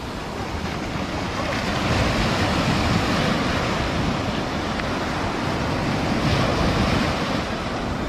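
Small Caribbean surf waves breaking and washing up a sandy beach, a steady rushing wash.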